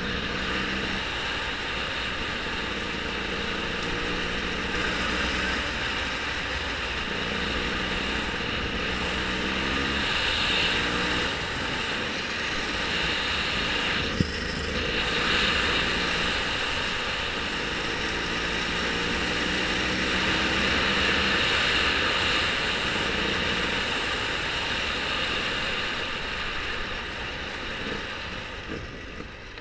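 A vehicle's engine running under a steady rush of wind or road noise. Its pitch rises and falls a little several times, and there is one sharp click about fourteen seconds in.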